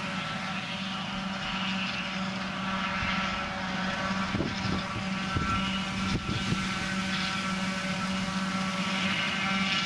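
A John Deere 7450 forage harvester chopping maize, its engine running at a steady drone with the rush of crop going through it. A John Deere 7930 tractor hauling the silage trailer runs alongside, with a few light knocks near the middle.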